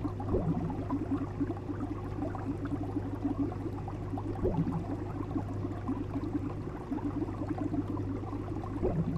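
Aquarium water bubbling and gurgling steadily over a constant low hum.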